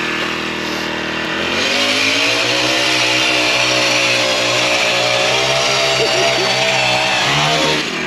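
Engine of a gas-powered ice auger drilling a hole through lake ice. It runs at low speed, is throttled up about a second and a half in and holds high speed under load, then drops back near the end.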